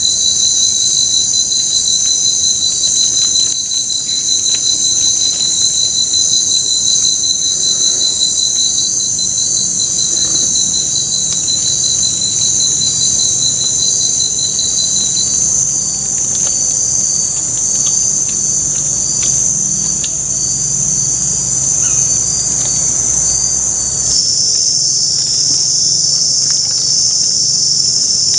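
Dense chorus of tropical forest insects shrilling steadily. One insect's rapid pulsing trill runs along with it and stops about halfway. The chorus changes pitch near the end. A faint low hum sits under it through the middle.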